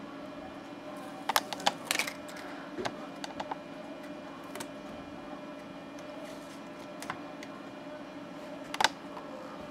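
Small clicks and crinkles from handling a thin plastic moth-trap holder and a paper trap sachet, in irregular clusters with the loudest about a second and a half in and near the end, over a steady low hum.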